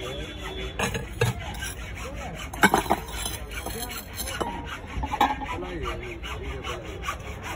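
Glazed ceramic bowls clinking and knocking against one another as they are picked up and handled in their stacks: a few sharp clinks, the loudest pair about three seconds in, over faint background chatter.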